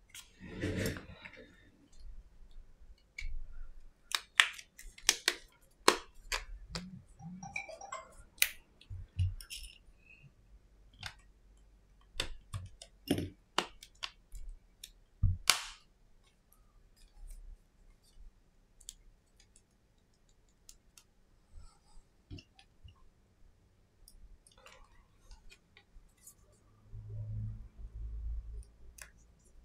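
Irregular small clicks and taps of precision repair tools against an iPhone SE's glass and metal body as it is handled on a silicone work mat, with a few sharper clicks among them. Near the end comes a duller handling noise as a precision screwdriver works at the phone's bottom screws.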